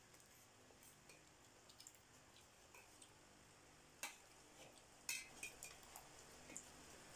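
Faint, scattered clinks and scrapes of spoons and forks against dinner plates during a meal, with a sharper click about four seconds in and a few more close together a second later.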